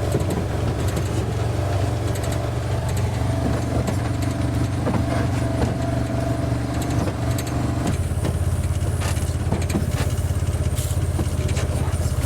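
Vehicle engine running steadily with light rattles; the engine note changes about eight seconds in, a higher tone dropping out and the low pulsing growing stronger.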